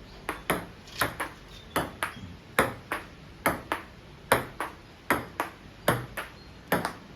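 Table tennis rally: a ping pong ball clicking sharply off the table and the paddles in an even back-and-forth, the bounce and the hit coming in pairs about every 0.8 seconds.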